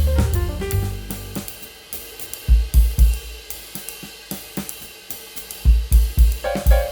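Background music: a drum-kit groove with hi-hat and cymbals and heavy bass-drum hits. The melody and bass line drop out about two seconds in, leaving only the drums, and return near the end.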